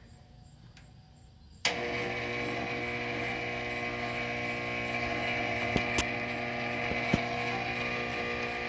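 Lau Ultra 20 box fan switched on at high with a click about two seconds in, its motor then giving a steady electrical hum with several fixed tones while it fails to come up to speed. A few light ticks come through the hum; the owner takes the sound for a stiff motor needing work, having first feared a short or electrical fault.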